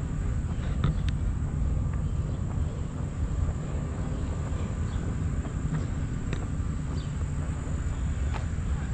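Outdoor park ambience: a steady, uneven low rumble with a thin, steady high buzz of insects above it.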